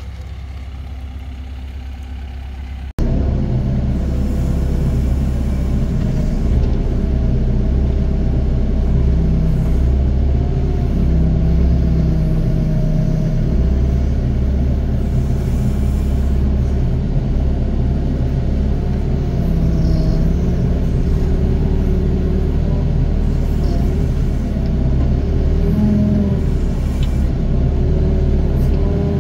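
Doosan DX55 mini excavator's diesel engine running under load while it digs and dumps soil, its pitch wavering as the machine works. About three seconds in the sound cuts out for an instant and comes back much louder.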